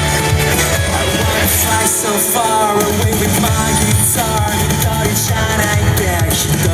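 Loud pop-rock dance music with a sung vocal line over a full band and a steady beat.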